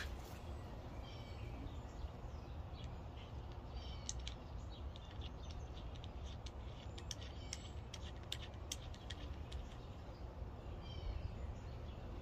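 Small birds chirping in short repeated calls over a low steady outdoor rumble, with scattered light clicks.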